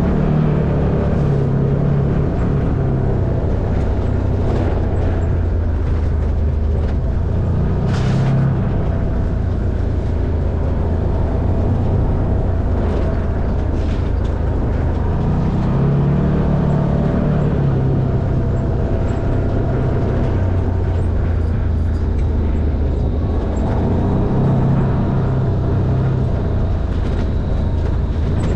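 Off-road side-by-side UTV's engine running as it drives a rough dirt trail, its note rising and falling with the throttle every few seconds. Scattered knocks and rattles from the machine over the ground, the sharpest about eight seconds in.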